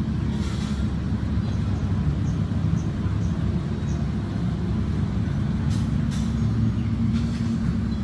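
A steady low rumble with a faint hum in it, holding at one level throughout.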